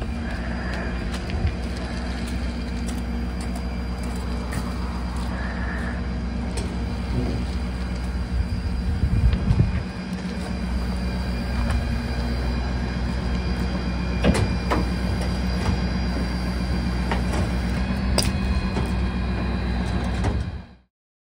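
Engine of a utility bucket truck running steadily while it powers the boom, a constant low drone with a few sharp clicks and knocks from the line work. It cuts off suddenly near the end.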